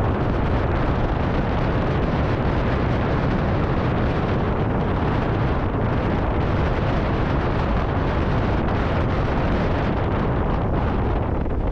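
Porsche Cayenne Coupe with its 3.0-litre V6 driving at a steady pace: a constant low rumble of engine, tyre and wind noise that holds an even level throughout, with no revving.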